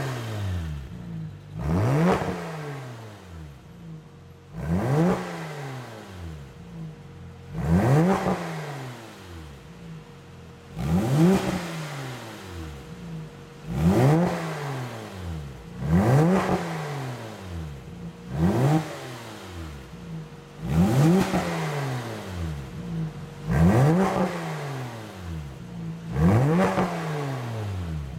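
Porsche 996 Carrera flat-six blipped through an iPE valved stainless exhaust, about ten short revs two to three seconds apart. Each rev rises quickly and drops back to idle.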